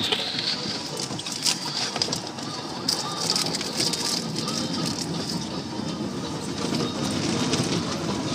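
Water spray and spinning cloth brushes of an automatic tunnel car wash pattering and rubbing over the windshield and body, heard muffled from inside the car. The wash noise is steady, with a few light ticks.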